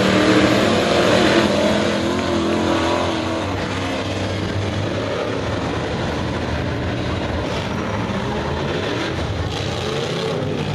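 Crate-engine dirt-track modified race cars racing flat out: a loud pass close by in the first few seconds, with engine pitch shifting as the cars go by, then the steady drone of the pack at a distance.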